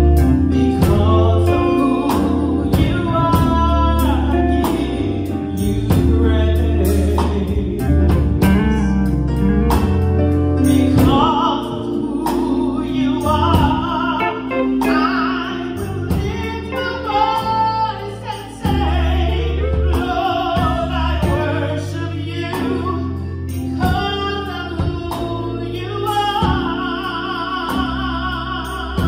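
A woman singing a gospel solo into a handheld microphone over instrumental accompaniment with a strong bass line and a steady beat.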